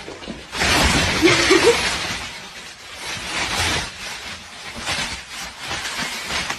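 Thin plastic carrier bag crinkling and rustling in repeated surges as it is handled with a cat getting into it.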